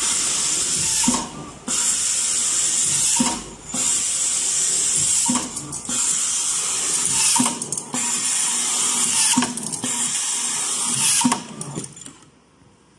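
Automatic tabletop screw-driving machine running in cycles: a steady high-pitched mechanical noise, broken about every two seconds by a short pause with clicks and knocks as the mechanism moves on. It stops about a second before the end.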